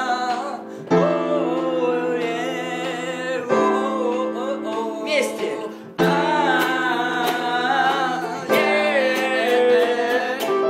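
A small soprano ukulele strummed while a man sings a wordless melody over held notes. The music drops and starts again abruptly a few times.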